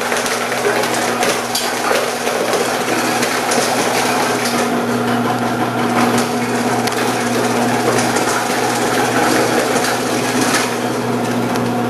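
Omcan HLC 300 vegetable processor running with a steady motor hum while its 2 mm slicing disc cuts carrots fed down the side chute, making a continuous crunching crackle.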